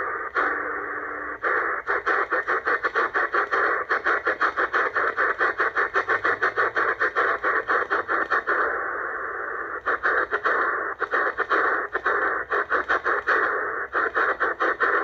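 ATS-25 DSP shortwave receiver hissing with band noise in upper sideband mode, cut by rapid, very short dropouts as the tuning knob is turned: the receiver mutes at each tuning step. Where the tuning pauses briefly, the hiss runs unbroken.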